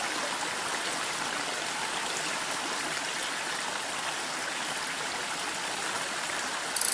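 Small rocky mountain stream running over little cascades, a steady rush of water. Right at the end a short, louder high-pitched hiss comes in.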